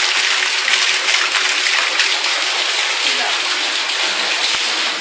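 Steady rush of heavy rain, with rainwater runoff gushing and splashing.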